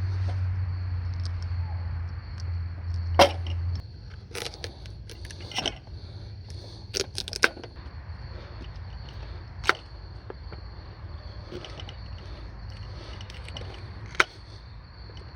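Wood fire in a fire stand crackling, with several sharp, irregular pops and cracks over a steady high-pitched drone. A low hum stops about four seconds in.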